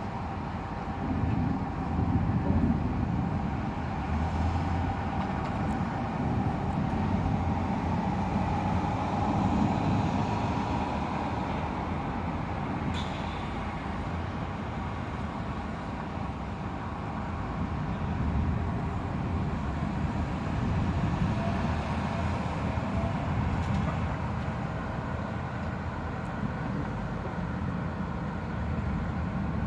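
Low rumbling that swells and fades several times over a steady background hum: distant rolling thunder during a thunderstorm, heard over city noise.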